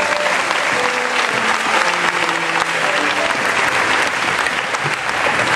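Audience applauding steadily, with music playing faintly underneath and fading out.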